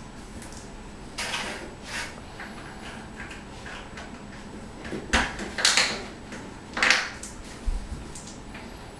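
A handful of short scrapes and knocks as a floor tile is pressed and shifted by hand into thinset mortar among tile-leveling clips, loudest in a cluster about five to seven seconds in.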